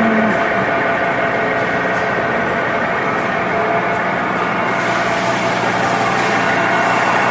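Mueller 36-cubic-foot horizontal ribbon mixer running: a steady machine hum with several steady whining tones.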